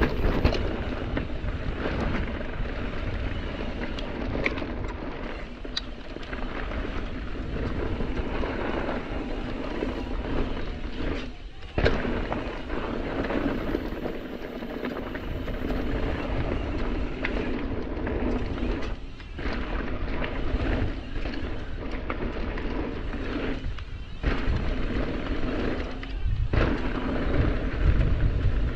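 Mountain bike ridden fast down a rocky dirt trail: tyres running over dirt and rock and the bike rattling over bumps, under heavy wind buffeting on the camera microphone. The noise drops away briefly four times.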